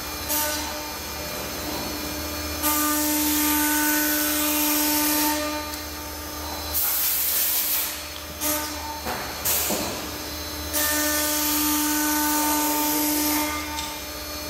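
1999 Homag BAZ 20 CNC woodworking machining center running: its router spindle whines at a steady pitch with loud hissing, in several runs of one to three seconds that stop and start, over a steady low hum.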